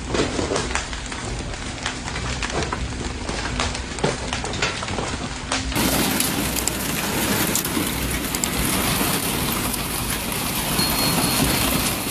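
Hailstorm: hailstones and rain pelting down, with many separate sharp impacts over a steady hiss. About six seconds in it cuts to another recording of denser, steadier pounding rain and hail.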